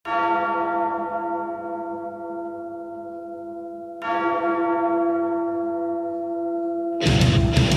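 A deep bell struck twice, about four seconds apart, each stroke ringing on and slowly fading. Near the end, loud music starts.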